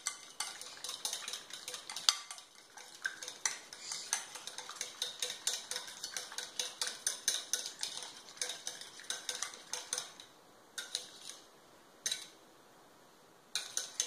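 A fork beating a wet egg-white mixture in a glass bowl, clicking and scraping against the glass about three to four times a second. The beating stops briefly twice near the end.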